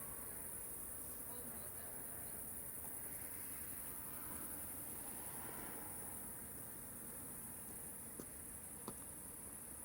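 Crickets chirping in a steady, high-pitched trill over a faint low background rumble, with two small clicks near the end.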